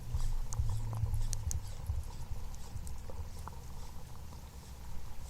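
Scattered light taps and clicks around a fishing kayak over a low rumble, the rumble heavier in the first two seconds.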